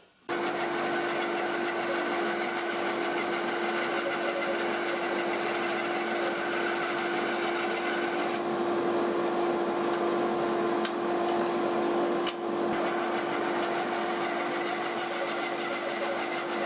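Bandsaw running with a steady hum, sawing a block of wood into thin slices against a fence.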